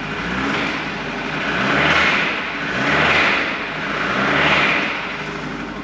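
Nissan Livina engine with about 241,000 km, running and revved in several blips, three strong rises and falls, to bring out the noise of an engine that has 'knocked': internal damage after years of overheating.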